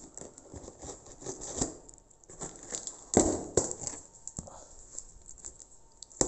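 Cardboard box and crumpled newspaper packing being handled: scattered rustles and crinkles of paper, with a louder rustle about three seconds in and a sharp tap near the end.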